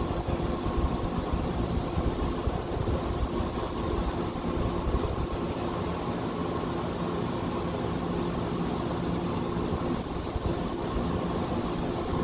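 Steady mechanical hum with a few held tones over a low rumble, unchanging throughout.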